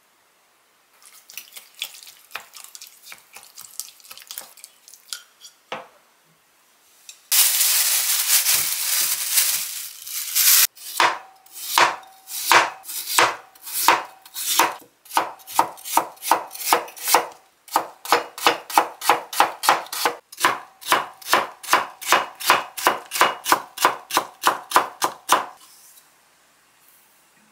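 Chef's knife cutting a raw potato on a cutting board: a few scattered cuts at first, then steady rhythmic chopping into thin matchsticks, about three knocks a second, stopping shortly before the end. About a third of the way in there are roughly three seconds of steady rushing noise.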